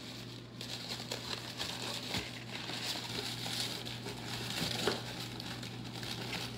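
Packing material rustling and crinkling as hands dig through a shipping box, with small irregular clicks and shuffles. A steady low electrical hum runs underneath.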